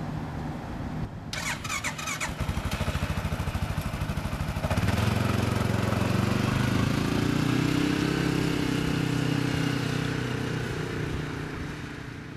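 ATV engine idling, with a short run of sharp clicks about a second and a half in. Then it revs up as the quad pulls away and fades off into the distance near the end.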